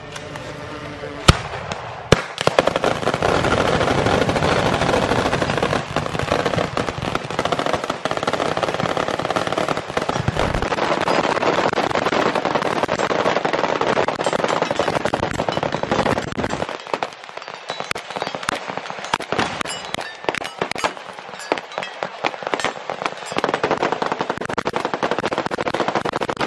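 Massed gunfire from a long firing line of rifles and machine guns shooting at once, many on full auto. A single shot comes about a second in, then the whole line opens up about two seconds in and keeps up a dense, continuous rattle of overlapping bursts, a little less heavy from about sixteen seconds on.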